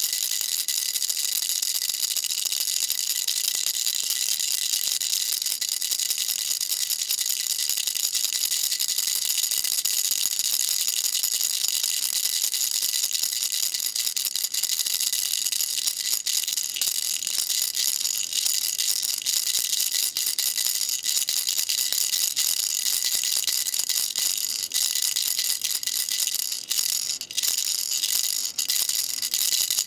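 Baby rattle shaken continuously: a dense, steady, high-pitched clatter of small beads, with a few brief dips near the end.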